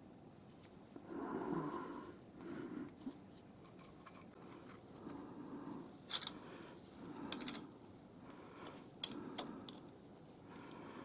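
A few sharp metallic clicks and clinks of tools and parts being handled at a milling machine setup, mostly in the second half, between soft breathing sounds.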